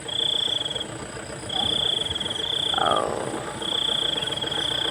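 High, rapidly pulsed animal trills, repeating in four bouts of about half a second to a second each. A short falling whistle comes about three seconds in.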